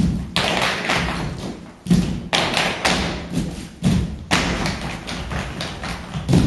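Heavy thuds of feet stamping on a stage floor, several in quick pairs about two seconds apart, each followed by a hissing wash that dies away.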